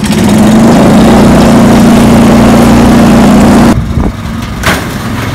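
Harbor Freight Predator 420 cc 13 hp single-cylinder engine in an EZGO golf cart running loud and steady under hard throttle as the cart is driven. A little after three and a half seconds it drops suddenly to a quieter engine sound with a couple of sharp knocks.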